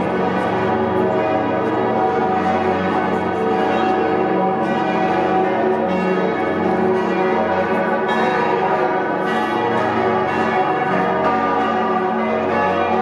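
Full peal of Salzburg Cathedral's seven bronze bells, tuned to a minor motif (E♭, G♭, B♭, D♭, E♭, G♭, A♭), with the great Salvator bell, the second-largest in Austria, as the deepest voice. The bells swing and strike over each other in a continuous, unbroken ringing.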